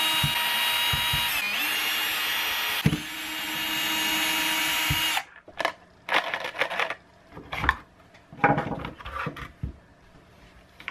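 Cordless drill-driver running, backing out the housing screws of a belt sander: a steady motor whine that dips briefly twice and stops about five seconds in. Then the light clicks and knocks of screws and plastic housing parts being handled.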